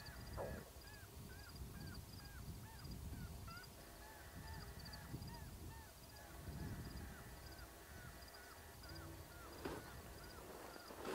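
Electronic predator caller playing a short, identical call over and over, about two to three times a second, used to lure coyotes in.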